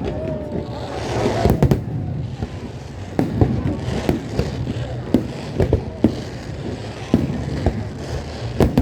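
Aerial fireworks bursting overhead: an irregular run of sharp booms and bangs, more than a dozen in all, some coming in quick pairs. A steady crackling hiss lies between the bangs.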